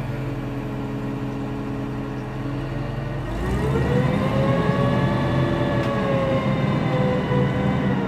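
Heavy forklift's engine running steadily, then revving up about three seconds in with a whine that rises, holds and eases back down near the end, as the machine works its load.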